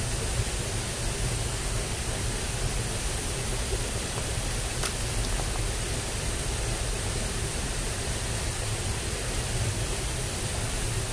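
Steady rushing of water flowing in a drainage ditch swollen by recent rain, with one faint click about five seconds in.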